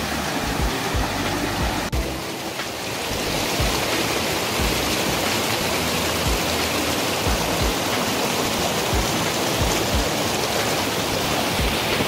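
Mountain stream rushing and splashing steadily over rocks in small cascades, with a brief dip in level about two seconds in.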